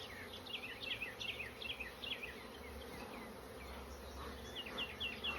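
Honeybees buzzing steadily as they fly around an opened hive, agitated by the inspection. A bird chirps in quick runs of short notes over it, once in the first half and again near the end.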